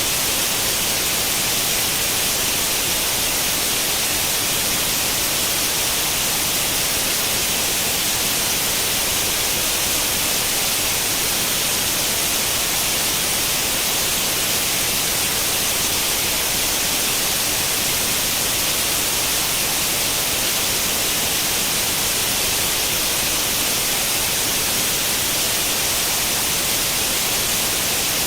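Steady, unbroken white noise, a hiss heaviest in the high end, like the static of an old tube television tuned to no channel.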